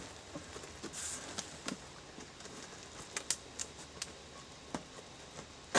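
Hands working on a taped cardboard shipping box: scattered light taps, scrapes and rustles, with a sharper knock right at the end.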